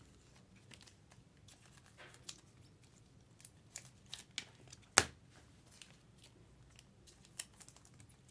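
Trading cards and a clear plastic card sleeve being handled: faint scattered rustles and clicks, with one sharp click about five seconds in.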